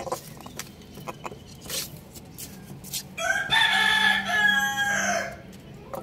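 A rooster crows once: a single loud cock-a-doodle-doo of about two seconds, starting about three seconds in. Before and after it come short sharp ticks, the chickens pecking at the concrete floor.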